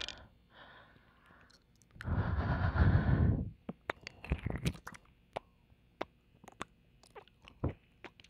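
Close-microphone ASMR mouth sounds: a long breath into the microphone about two seconds in, then scattered wet mouth clicks and licking sounds.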